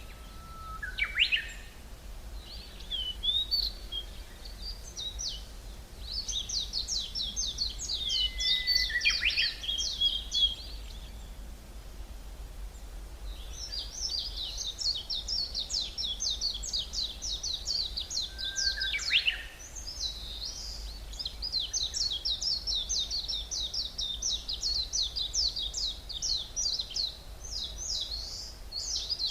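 Songbirds singing in a forest: long, fast, high-pitched trilled phrases that come and go, with a pause around the middle, and three short upward-sweeping calls, about a second in, around nine seconds and around nineteen seconds. A steady low rumble lies underneath.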